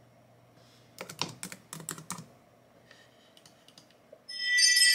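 A quick run of computer keyboard keystrokes about a second in. Near the end, a loud electronic chime of several ringing tones starts, an alert that someone is in front of the house.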